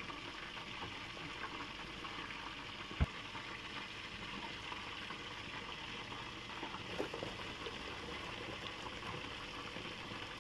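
Steady sizzling of food frying in a pan cooking nearby, an even hiss throughout, with one sharp click about three seconds in.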